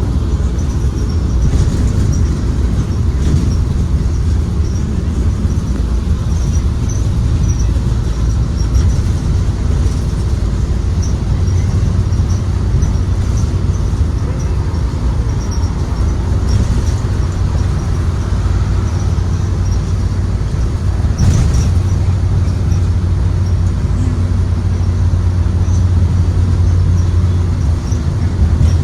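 Interior ride noise of a 2023 Blue Bird Vision school bus under way. Its Ford 7.3L gasoline V8 runs with a steady low drone over road rumble, with a few brief rattles and knocks from the body.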